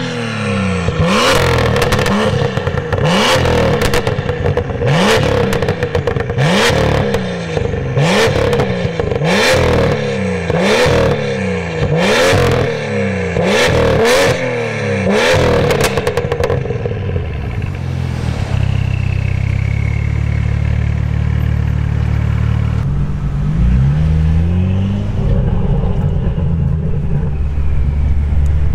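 BMW M2's turbocharged straight-six revved again and again through a decatted Fi valved exhaust with the valves open, about nine quick blips, each rising and falling with sharp pops and cracks. From about 17 s the engine settles into a steady low drone, with a couple of rising pulls near the end.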